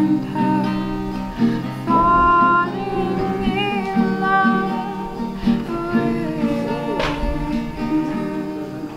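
Music: an acoustic guitar playing, with a voice singing held, wavering notes over it.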